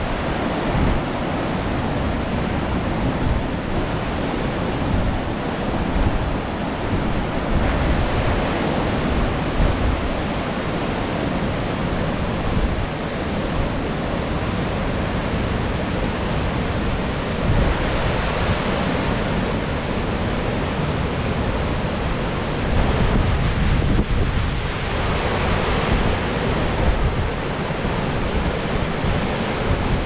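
Steady rushing of a large waterfall's falling water, with wind buffeting the microphone.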